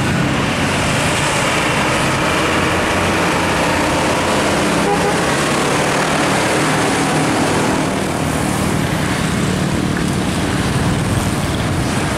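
Heavy road traffic passing close by: a cargo truck's diesel engine and tyres running past about halfway through, mixed with cars and a motorcycle, a steady unbroken engine and tyre noise.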